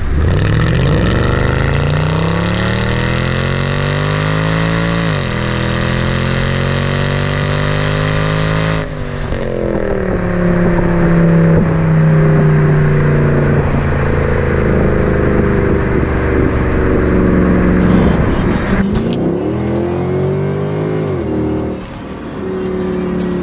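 Mercedes-Benz C63 AMG (W204) 6.3-litre V8 accelerating hard, heard close to the exhaust tips. The revs climb, drop sharply at an upshift about five seconds in, and climb again. Then comes a longer stretch of steadier, slowly falling engine note, with another quick rise and upshift near the end.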